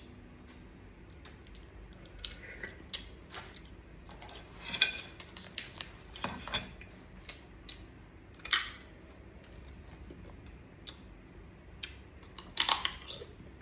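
Sea crab shells being cracked and broken apart while eating: a series of irregular sharp cracks and clicks, loudest about 5, 8.5 and 12.5 seconds in.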